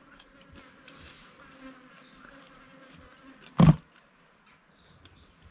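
Faint, steady buzzing of insects, with small scattered clicks. One loud thump comes about three and a half seconds in.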